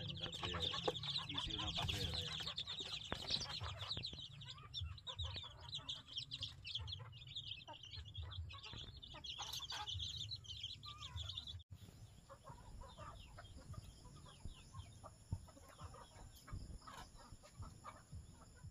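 Young chicks peeping in a dense chorus, mixed with some clucking. About two thirds of the way through it cuts off abruptly, and fainter scattered chirps and clucks follow.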